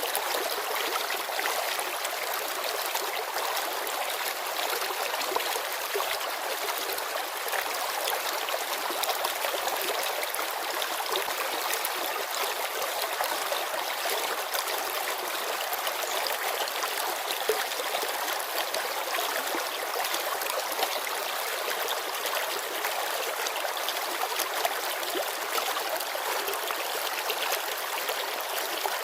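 Shallow mountain river running and babbling over stones, a steady, even rush of water.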